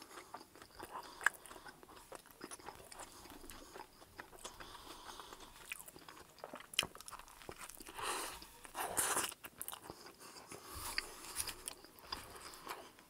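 Close-miked chewing and mouth sounds from eating a chopped deli sub on a soft sub roll, soft clicks and crackles throughout, with a few louder crackles of the roll about two-thirds of the way through.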